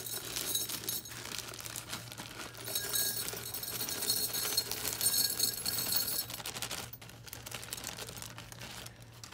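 Small gold-filled watch band tops poured from a plastic zip bag into a glass jar: a continuous clinking rattle of metal pieces on glass with crinkling of the bag, thinning out about six seconds in.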